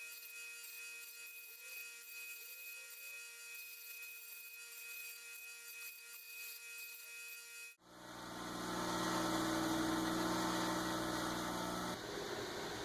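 A faint steady hum with a few held tones, then after a sudden cut about eight seconds in, a louder power-tool motor running steadily, its tone changing slightly near the end.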